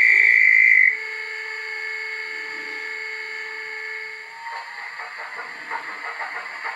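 Bachmann Class 25 DCC sound decoder playing through the model's small speaker: a loud, steady high whistle tone for about the first second, then a steady synthesised diesel engine sound, with a rhythmic engine beat coming in about four seconds in.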